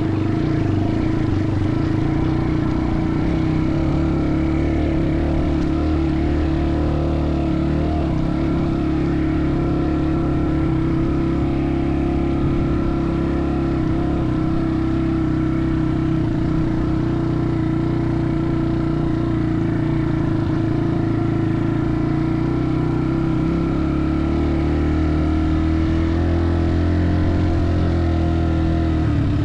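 An engine running steadily while under way, its pitch drifting slightly up and down.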